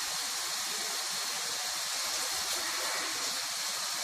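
Steady hiss and bubbling of food cooking on a stove.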